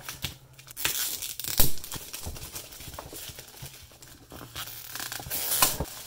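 Clear plastic wrap being torn and peeled off a cardboard box, crinkling throughout, with louder rips about a second and a half in and near the end.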